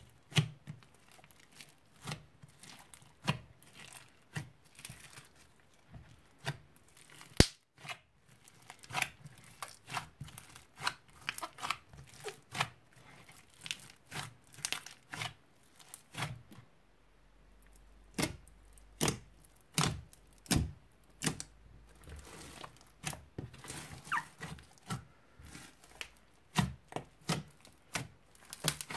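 Hands squeezing, stretching and kneading a big lump of slime studded with foam beads: an irregular string of sharp wet pops and clicks, about one or two a second, as trapped air bursts out of the slime.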